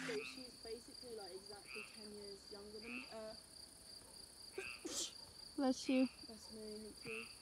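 Crickets chirring at night in a steady, faint high trill, with short pitched sounds coming and going now and then.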